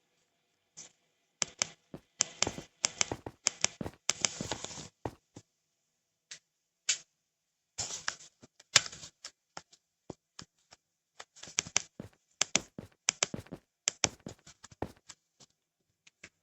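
Irregular clusters of sharp clicks and taps, fast and uneven, with a gap of about two seconds in the middle where only two single clicks sound.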